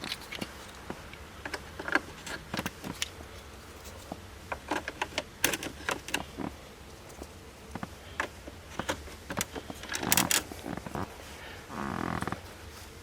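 Irregular plastic clicks and knocks as Dodge Neon dashboard controls and trim are pushed back into place, with a denser cluster of clicks about ten seconds in. A short pitched hum sounds near the end.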